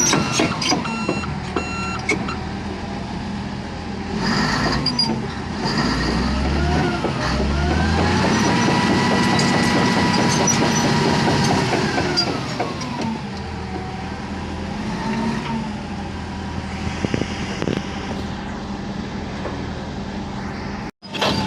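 Komatsu D155A bulldozer's diesel engine running and being revved while its power is tested after a no-start repair: the pitch climbs, holds high for about four seconds, then drops back toward idle. There are a few low thumps just before the long rev.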